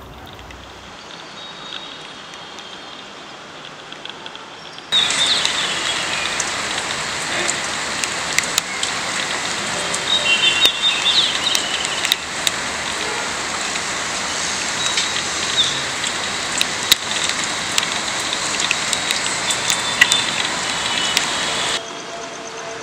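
Rain falling, a steady hiss with the sharp patter of individual drops; it becomes much louder abruptly about five seconds in and drops back just before the end. A few short bird chirps sound around ten seconds in.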